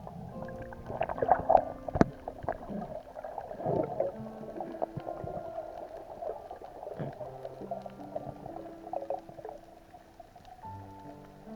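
Soft background music with held notes, mixed with irregular underwater gurgling and bubbling, loudest in the first few seconds, and a sharp click about two seconds in.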